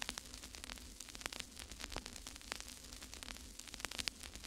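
Faint crackling static: a steady hiss with irregular sharp clicks and a low steady hum underneath.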